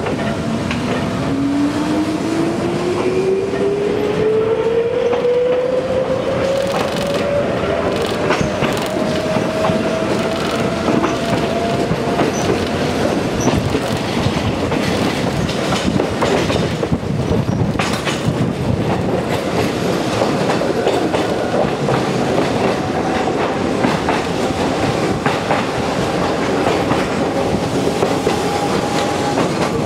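Electric train accelerating: a traction-motor whine rises steadily in pitch for about twelve seconds, then levels off and creeps slowly higher. Running noise goes on underneath, with wheels clicking over rail joints.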